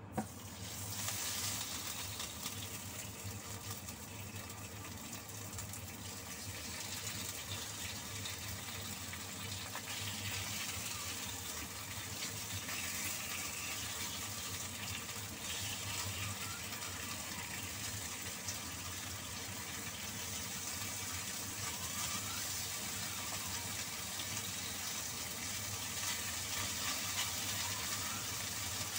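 Marinated chicken pieces sizzling in hot oil in a frying pan. The sizzle starts suddenly just after the first piece goes in and keeps on steadily as more pieces are added.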